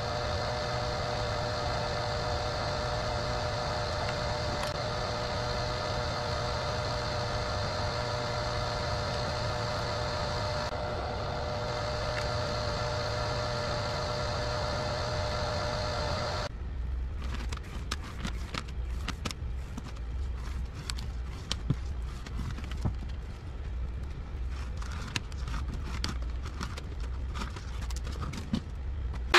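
CO-Z electric wire stripping machine running with a steady motor hum as insulated wire is fed through its rollers. About sixteen seconds in the hum stops abruptly, and a scatter of light, irregular clicks and rustles follows as stripped copper wire is handled.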